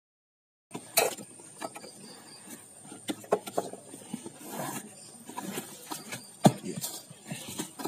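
Cardboard shoe box being handled and turned over by hand: scattered knocks, taps and rustles, with the loudest knock about six and a half seconds in. The sound cuts in abruptly under a second in.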